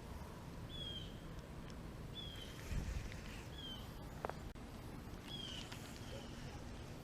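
A bird calling with short, high, slightly falling chirps, four times about a second and a half apart, over a low steady rumble of wind on the microphone, with one dull thump near the middle.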